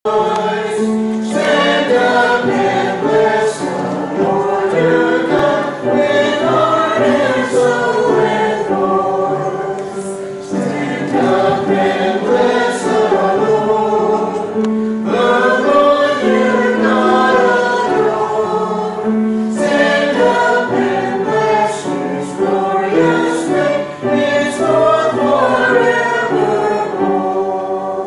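A small mixed church choir of men and women singing in parts, with held notes and short breaks between phrases; the singing dies away at the end.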